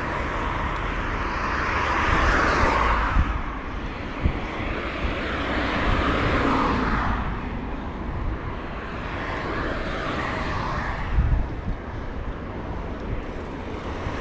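Wind buffeting the microphone during a bicycle ride, with road traffic noise that swells and fades three times.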